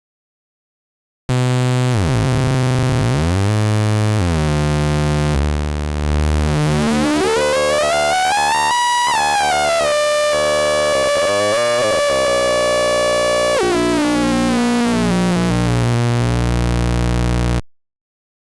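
Hard-synced synthesizer oscillator made in Unreal Engine's MetaSounds: a sustained tone full of overtones that sweep up and then back down as the sync is swept, peaking about halfway through. It starts about a second in, its low pitch steps about several times near the end, and it cuts off suddenly just before the end.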